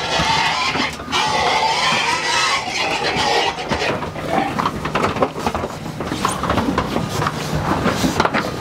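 Pigs crammed into a livestock transport trailer making distress calls, a dense, continuous din with no let-up. A steady low hum runs beneath.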